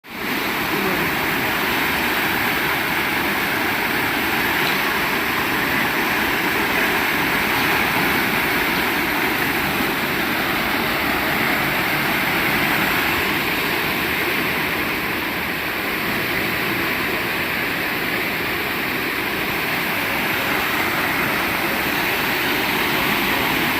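Floodwater rushing: a steady, loud, unbroken roar of fast-flowing water.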